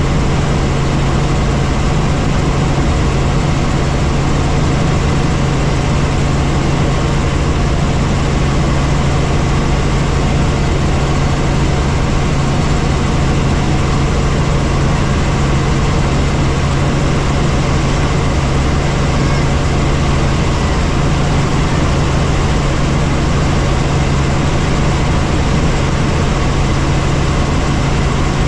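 Helicopter in flight: a steady, loud engine and rotor drone, a constant low hum over a wide wash of noise.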